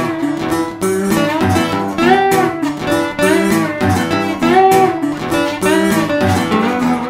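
Background music led by guitar, with notes that bend in pitch over a recurring low beat.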